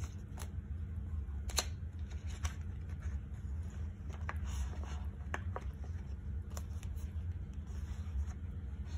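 Paper being handled and worked on a craft table: scattered light clicks and rustles, irregular and about once a second, over a steady low hum.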